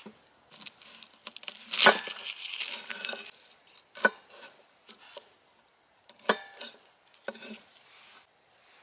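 A garlic bulb being broken apart with a knife on a bamboo cutting board: a few sharp knocks of blade and bulb on the wood, the loudest about two seconds in and followed by about a second of papery crackling from the garlic skins.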